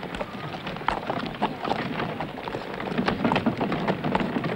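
A horse's hooves clopping and a wooden cart's wheels rattling over cobblestones, an irregular clatter of knocks as the horse-drawn cart pulls up.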